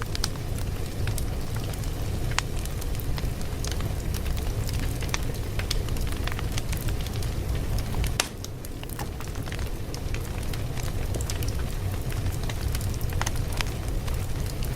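Fire crackling: a steady low rumble under frequent irregular pops and snaps, dipping briefly a little past halfway.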